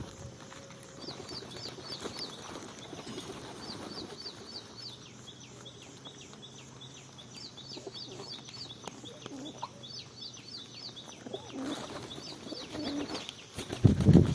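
Small birds chirping in runs of short, quick, falling notes, several a second, coming in repeated bursts over a soft rustling. A louder rustle or flapping comes in near the end.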